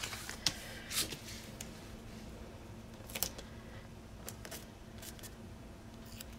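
Paper planner sticker sheets being handled and a small sticker peeled off its backing: soft rustling with a few short, sharp crackles spread through.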